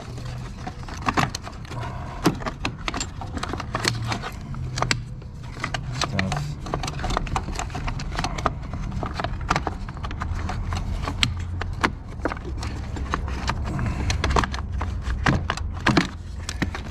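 Irregular clicks, knocks and light rattles of parts being handled and fitted back into place during reassembly, over a low steady hum.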